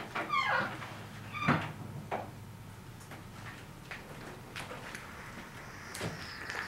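A door being handled: a click and a brief creak at the start, a louder knock about a second and a half in, a lighter knock just after, then scattered soft clicks.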